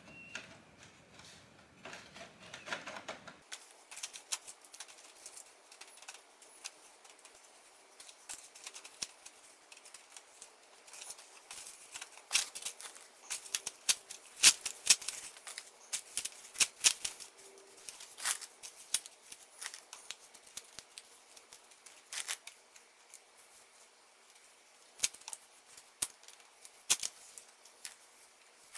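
Hands scooping moist seed-starting soil and pressing it into a thin black plastic seed-cell tray: irregular crackling clicks and rustles, busiest around the middle.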